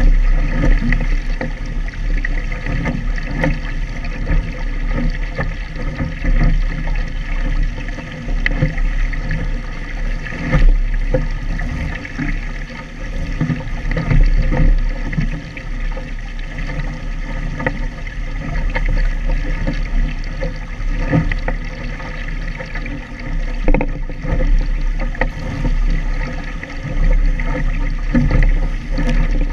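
Water rushing and splashing along a sailing dinghy's hull at speed, with gusting wind buffeting the camera microphone in an uneven low rumble that swells and drops.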